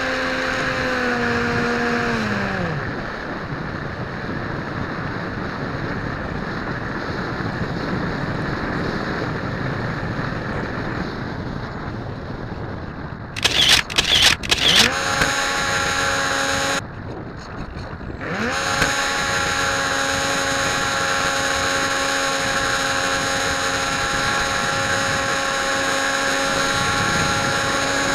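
Electric motor and propeller of a Dynam Hawk Sky RC plane heard from its onboard camera: the steady motor whine winds down about two seconds in, leaving air rushing past. A few loud sudden bursts come about halfway through, then the motor spins up again, cuts out briefly, and runs steadily to the end.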